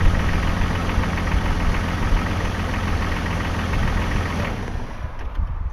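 Jeep Grand Cherokee ZJ's 4.0-litre straight-six idling steadily with the A/C compressor engaged. The freshly tensioned serpentine belt runs without squealing. The engine sound drops off near the end.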